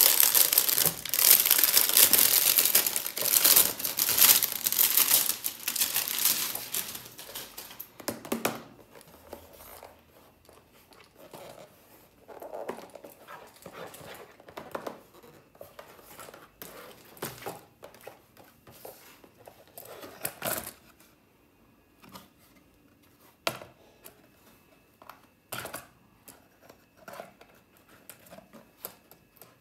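Clear plastic shrink wrap crinkling and tearing as it is pulled off a cardboard candy box, loud and continuous for about the first eight seconds. After that, quieter handling of the cardboard box with scattered soft taps and clicks.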